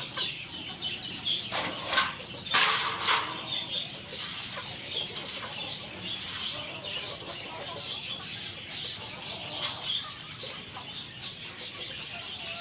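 Caged aseel chickens flapping their wings and clucking as feed grain is put into their clay bowls, with the loudest rustling bursts about two to three seconds in.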